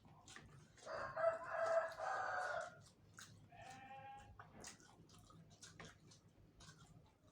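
A rooster crows once, starting about a second in and lasting under two seconds, followed by a shorter call a second later. Scattered soft clicks of someone chewing and biting run beneath it.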